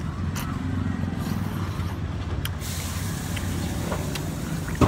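Steady low rumble of road traffic, a motor vehicle engine running, with a few faint clicks and a loud knock right at the end.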